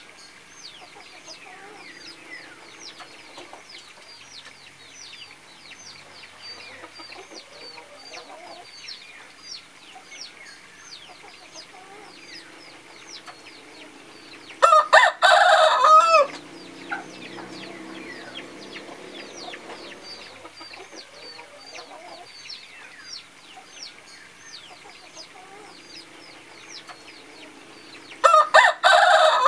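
A rooster crows loudly twice, once about halfway through and again near the end, each crow lasting about a second and a half. Under the crows there are constant quick, high, falling chirps.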